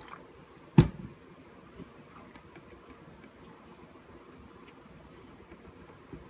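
Handling noises on a workbench while an instrument-cluster circuit board is cleaned: one sharp knock about a second in, then a few faint ticks and light rubbing.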